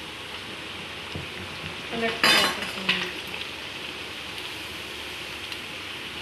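Semolina golgappa puris deep-frying in hot oil in a kadhai, a steady sizzle. About two seconds in, a metal slotted spoon clinks and scrapes against the pan a few times as the puris are turned.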